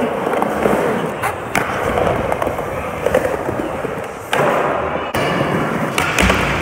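Skateboard wheels rolling on a smooth concrete skatepark floor, with several sharp clacks of the board along the way and a heavier knock near the end as the board meets a wooden ledge.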